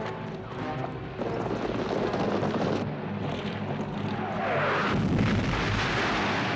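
Battle soundtrack of cannon fire and explosions mixed with orchestral film music. About four seconds in, falling whistles lead into the loudest blast, which rumbles on to the end.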